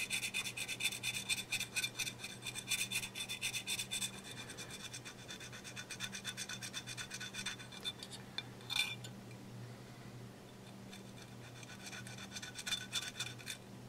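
An 1800-grit Micro-Mesh sanding swab rubbing quickly back and forth over modeling medium on a thin porcelain flower petal, a fine scratchy stroke several times a second. The strokes grow faint partway through, with a single tick, and pick up again near the end.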